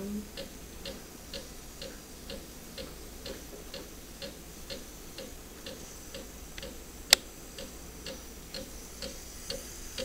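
De'Longhi espresso machine steaming milk in a stainless jug: a regular ticking about twice a second over a faint steady low noise, with one sharp click about seven seconds in.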